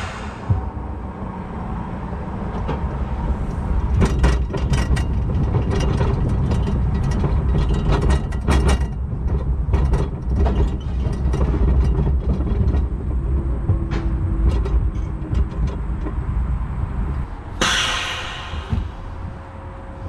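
Zamperla Windstorm roller coaster train running on its steel track, heard from on board: a steady low rumble of wheels with bursts of clattering and rattling. A short, loud hiss comes near the end.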